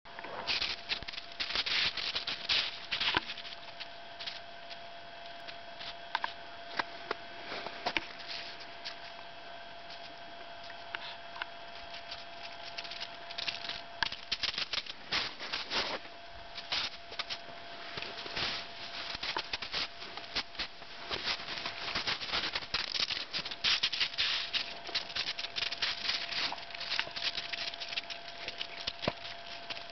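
Crisp crunching and pattering on crusty snow, in irregular runs of quick crunches with short gaps between them, over a faint steady whine.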